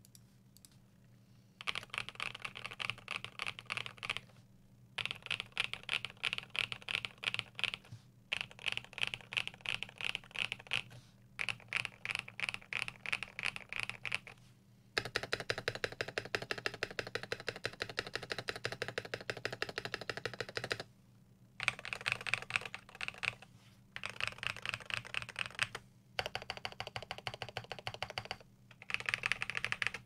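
Custom mechanical keyboard being typed on: lubed Everglide Dark Jade tactile switches in a steel plate, under PBT keycaps, clacking in fast runs of a few seconds with short pauses between. For about six seconds in the middle the spacebar, on lubed Everglide V2 stabilizers, is tapped rapidly over and over.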